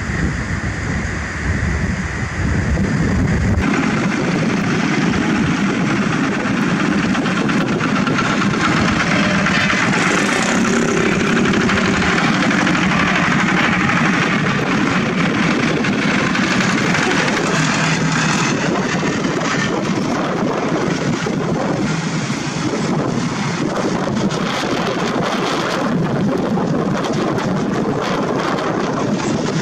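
Several walking tractors' single-cylinder diesel engines running together in a convoy, a dense steady engine noise. The sound changes abruptly about three and a half seconds in, losing its deepest part.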